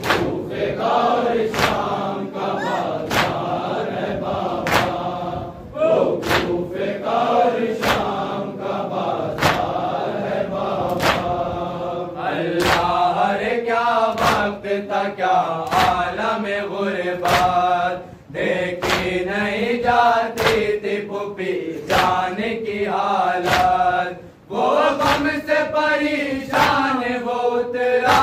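Men chanting an Urdu noha (mourning lament) together, a lead voice with the group answering. A sharp slap of hands beating on chests lands in time roughly every 0.8 seconds.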